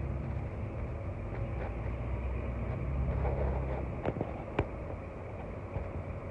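Steady low rumble of road and engine noise heard inside a moving car, with two sharp clicks or knocks about four and four and a half seconds in.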